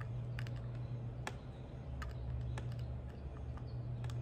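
Light scattered clicks from a USB cable being handled and plugged into an Arduino board, over a steady low hum in the room.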